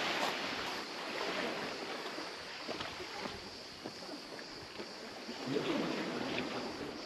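Small waves washing over a pebble shore, a little louder in the first second, with scattered faint scuffs of footsteps on the stones and rocks.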